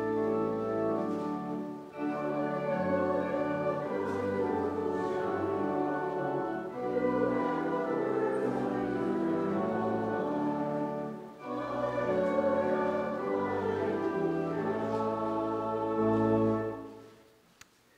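Church congregation singing the Gospel acclamation with keyboard accompaniment: a short sung response in several held phrases, ending about a second before the end.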